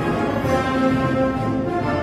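Military band playing a festive march: sustained brass and wind chords over a steady march beat.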